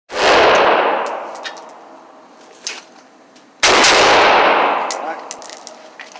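Two AR-15 rifle shots about three and a half seconds apart, each with a long echoing decay off the walls of an indoor range, and a few light metallic clinks between them.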